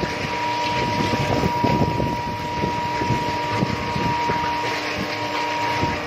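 Molten metal pouring from a tilted induction melting furnace: a rough, steady rushing noise full of irregular crackles, over a thin steady high whine from the furnace.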